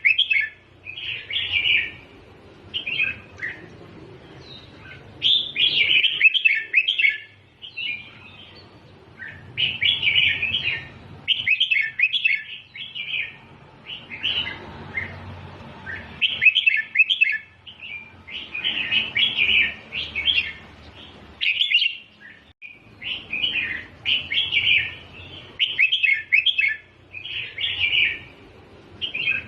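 Red-whiskered bulbul singing: short, quick song phrases, each lasting a second or two, repeated about a dozen times with brief pauses between them.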